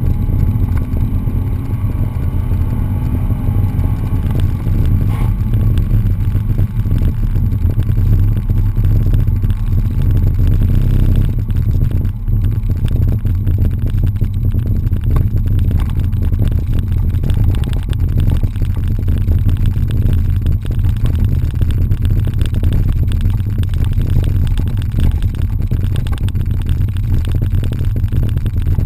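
Pontiac GTO's V8 engine heard from inside the cabin. Its pitch rises under acceleration over the first few seconds, then it settles into a steady low rumble with road noise as the car slows and cruises.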